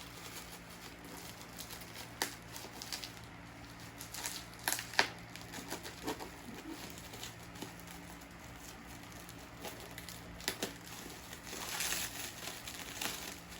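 Parcel packaging being torn and unwrapped by hand: crinkling and tearing with scattered sharp crackles, and a longer stretch of rustling near the end.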